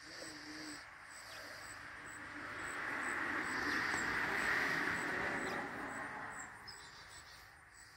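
A vehicle passing, its road noise swelling to loudest about halfway through and then fading away. Under it, a faint regular high-pitched ticking of insects, about two or three a second.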